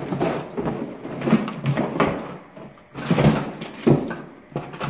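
Rummaging through a cardboard box of toys: cardboard scraping and shifting, with toys and books knocking and rustling against each other in irregular bursts.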